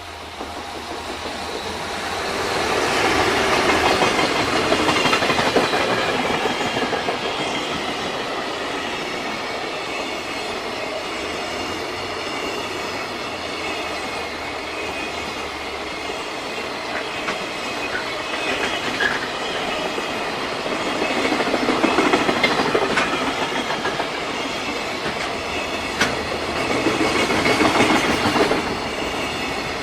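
JR Freight freight train passing close by, its wheels clattering over the rail joints as the wagons roll past. The sound builds over the first few seconds as the train arrives.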